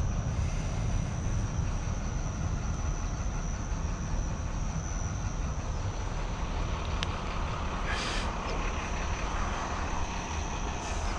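Steady low outdoor rumble, like distant city traffic or wind on the microphone, with a thin high steady tone above it. There is a faint click about seven seconds in, then two short hissy rustles, one about eight seconds in and one near the end.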